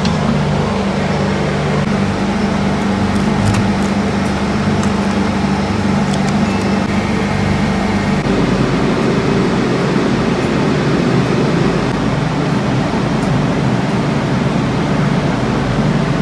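Steady, loud machinery drone with a low hum. About eight seconds in, at a cut, it changes to a rougher, more even rumble.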